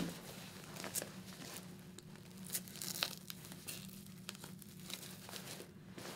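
Textile and mesh fabric of a motorcycle jacket and an airbag vest rustling and crinkling as it is handled, with scattered short rips of Velcro patches being pressed together and pulled apart.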